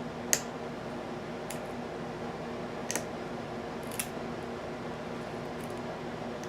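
Four short, sharp metallic clicks, the first the loudest, as a lock pick works the pins inside an American Series 700 padlock's APTC12 cylinder. A steady hum sits underneath.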